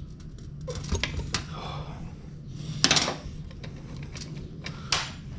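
Metal clinks and knocks of hand tools and truck brake parts being handled, with a sharp clank about three seconds in and another near the end, over a steady low hum.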